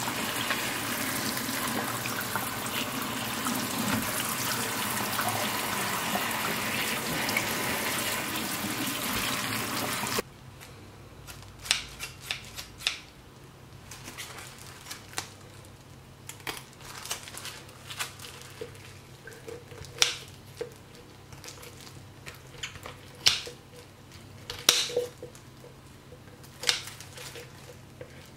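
Tap water running steadily over a redfish being rinsed in a steel sink; about ten seconds in it cuts off abruptly. Then quieter, irregular sharp clicks and snips as the fish is handled and cut open at the belly on a plastic cutting board.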